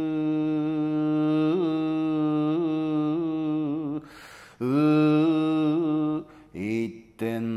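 Solo male voice chanting Shingon shōmyō (Buzan-style hyōbyaku) on long held notes, with small wavering ornaments (yuri) on the held tone. A pause for breath comes about four seconds in, then a new note slides up and is held, breaking into short syllables near the end.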